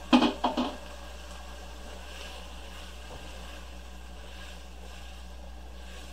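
Three quick, sharp knocks near the start, then a spatula stirring diced onion, celery and carrot in butter in a nonstick pot: faint scraping and light sizzling over a steady low hum.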